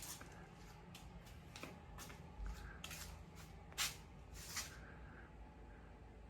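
Faint, irregular rustles, scrapes and light clicks of materials being handled at a workbench, a few short strokes spread over the first four and a half seconds, the loudest a bit under four seconds in.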